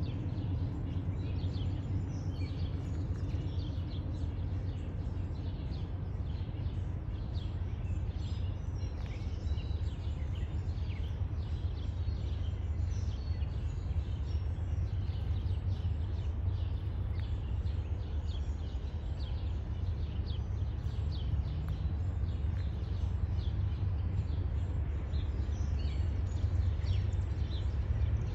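Birds chirping over a steady low rumble.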